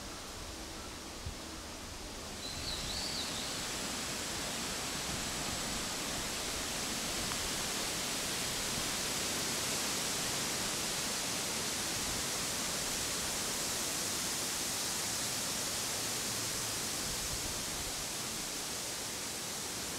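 Steady rushing noise that grows louder about two and a half seconds in, with one short bird chirp just as it rises.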